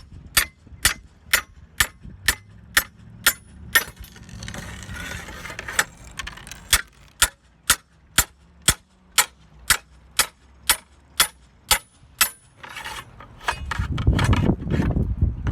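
Slate ripper hammered in sharp metallic blows, about two a second, to cut the nails holding a broken roof slate, with one short pause. Near the end the blows give way to rougher scraping and rumbling noise.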